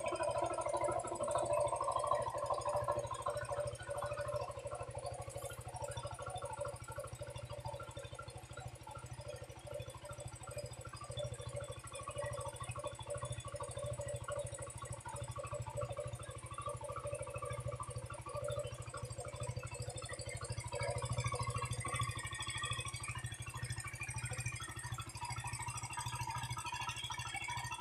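Zontes U1 250cc motorcycle engine idling steadily.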